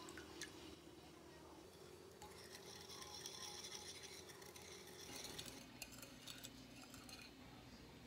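Faint clinks and swishing of a wooden utensil stirring soy-sauce marinade in a glass bowl to dissolve the sugar.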